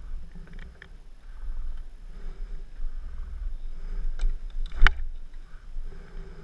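Low rumble of wind buffeting a helmet-mounted camera, with scuffs and one sharp knock about five seconds in.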